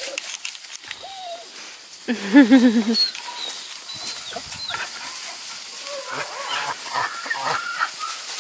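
Redbone Coonhound puppies making noise as they play: one gives a short wavering howl about two seconds in. High squeaks, squeals and yips from the litter follow, over the rustle and crackle of dry leaves.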